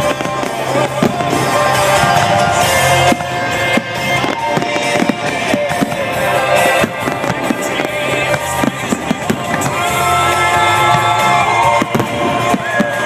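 Fireworks bursting and crackling in rapid, irregular bangs, over loud music with sustained melody tones.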